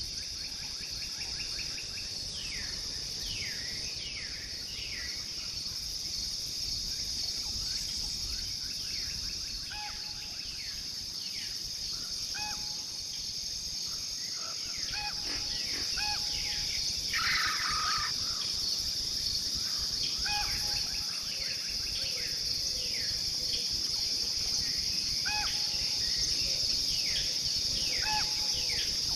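Jungle ambience sound effect: insects droning steadily at a high pitch, with many short falling chirps and brief calls scattered over it.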